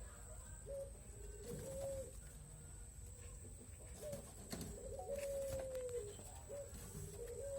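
Spotted dove cooing: repeated low coo phrases, each a short note followed by a longer, slightly falling one, about every two and a half seconds.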